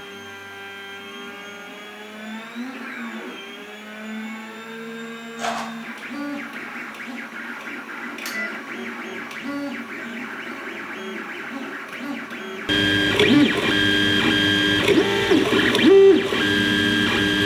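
3D printer's stepper motors whining through their moves, several tones together gliding slowly up and down in pitch. About thirteen seconds in the sound gets louder, and the tones jump from pitch to pitch in short steps.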